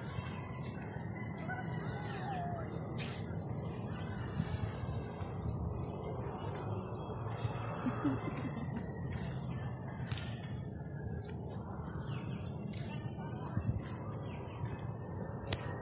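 Birds calling now and then over steady low outdoor rumble, with a few faint clicks.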